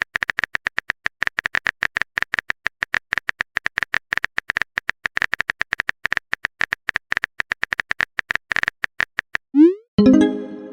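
A fast run of short electronic beeps at one high pitch, several a second with brief gaps, like text-scroll blips. About nine and a half seconds in comes a quick rising glide, then a ringing pitched note that fades.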